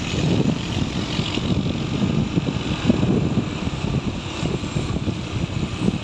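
A vehicle engine running steadily while climbing a road, under an uneven low rumble of wind on the microphone.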